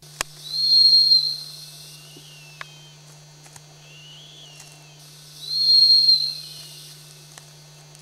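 White hawk calling: two long, high, hissy whistled screams of about a second each, four to five seconds apart, with fainter lower calls between them. A steady low hum from the recording runs underneath.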